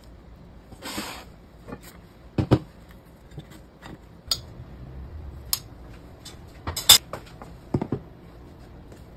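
Tableware being handled: scattered knocks and clinks as a rice-ball mould is pressed and tapped out onto a plate and ceramic plates and bowls are set down on a metal counter. The loudest knocks come a little before the end.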